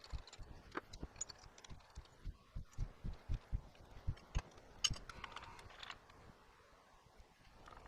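A manual milling machine being worked by hand: a run of light knocks and clicks, about two or three a second, that thins out after about five seconds, with a brief faint ringing near the five-second mark.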